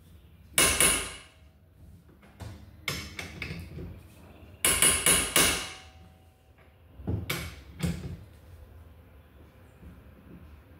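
A series of irregular hammer blows on metal with a ringing note, the heaviest strikes about a second in and around five seconds in. The blows are driving a worn rear-suspension bushing out of its arm after it has been heated.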